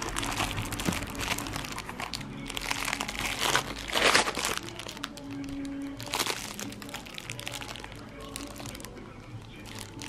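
Clear plastic packaging crinkling and rustling as it is handled, loudest about four seconds in, over soft background music.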